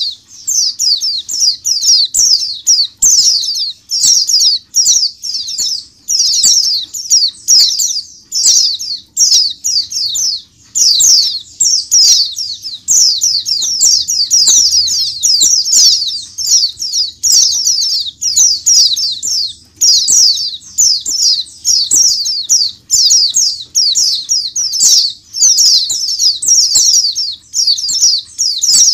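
A caged flock of white-eyes (pleci) chirping and singing together: a loud, dense, unbroken chatter of rapid high notes, each falling in pitch.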